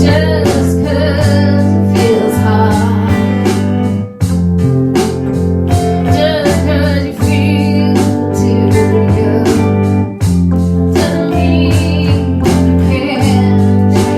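A band playing a song: guitar and bass over a steady beat, with a singer's wavering voice coming in and out.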